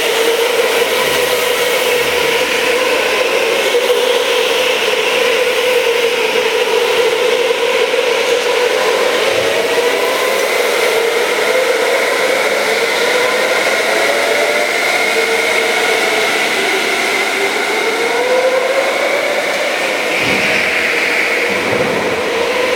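Go-kart engines running around an indoor track, a whine whose pitch rises and falls as the karts accelerate and slow for the corners.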